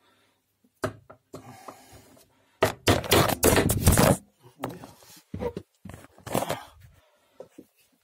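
Handling noise from a dropped recording phone. A knock comes about a second in, then a loud scraping rustle, then several smaller knocks and scrapes as it is picked back up.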